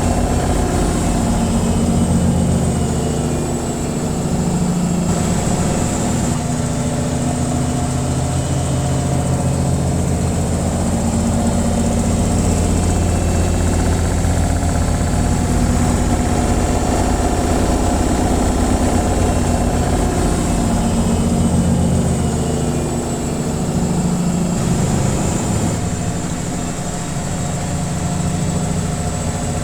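Washing machine on its spin cycle: a steady low hum and vibration of the spinning drum, swelling and easing slightly every several seconds.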